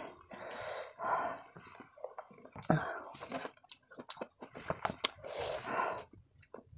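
Close-up mouth sounds of someone chewing soft kiwi fruit, wet and irregular, with a few light clicks of a metal fork against the bowl.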